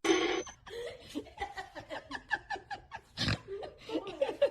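An animal making a quick, irregular series of short pitched calls, several a second, with one louder noisy burst about three seconds in.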